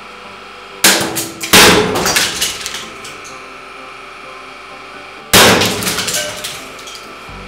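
Stacked brown plastic boards cracking and snapping under a hydraulic press as a steel ball is forced through them: two sharp cracks about a second in, half a second apart, and a third after about five seconds, each trailing off in splintering crackles. A steady hum sits underneath.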